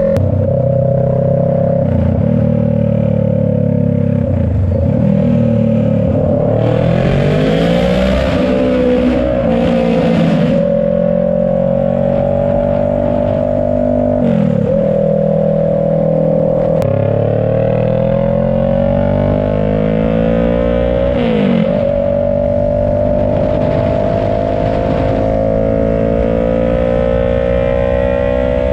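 Kawasaki Ninja 650's parallel-twin engine running loud through a straight-pipe short GP exhaust with no muffler. Its pitch climbs slowly, drops sharply, then climbs again, several times over.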